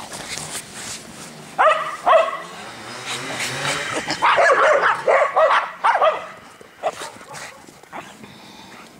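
A dog barking: two loud barks about a second and a half in, then a quick run of barks from about four to six seconds in.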